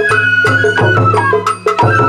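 Sawara bayashi festival music: a high bamboo flute holding a melody over drums and sharp percussion strokes in a steady beat, about three to four strokes a second.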